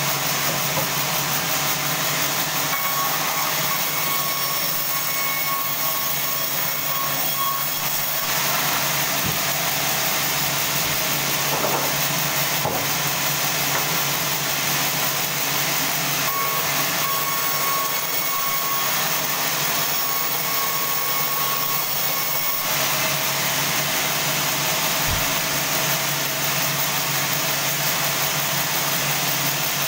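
Sawmill band saw running steadily with its motor under way. A thin high whine comes in twice, for about five seconds each time.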